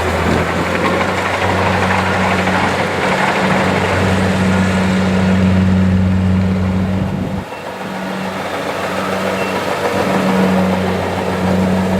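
Kubota DC-70 rice combine harvester running at work, a steady engine hum under the noise of its machinery. About seven and a half seconds in the deepest part of the hum drops away and the sound eases briefly, then carries on.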